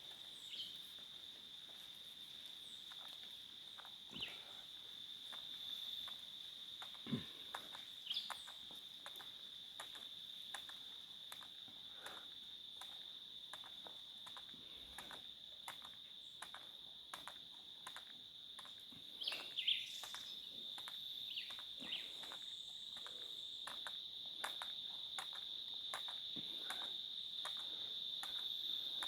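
A steady, high-pitched insect trill, like crickets calling, with scattered faint clicks and a few brief chirps, the loudest about two-thirds of the way in.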